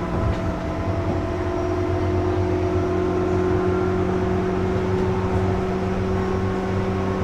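JR West 201 series thyristor-chopper electric train running, a steady rumble with several steady tones held over it, growing slightly louder near the end.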